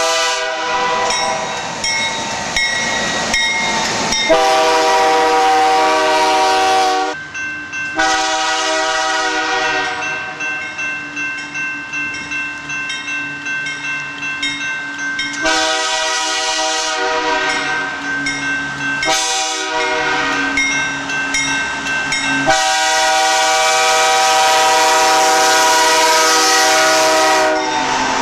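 Nathan Airchime K3-series five-chime locomotive air horns blowing long, steady chord blasts, with an abrupt change from one horn recording to the next every few seconds. In the middle, steady rhythmic wheel clatter runs under the horn as the train passes.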